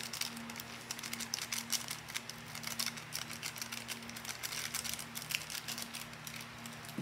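Foil seasoning sachet crinkling as it is torn open and squeezed to empty the powder out: a dense, irregular run of small crackles, over a steady low hum.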